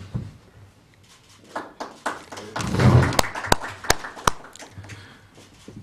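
A quick run of sharp camera shutter clicks, four in about a second and a half, around a handshake photo-op. Faint voices and shuffling come just before them.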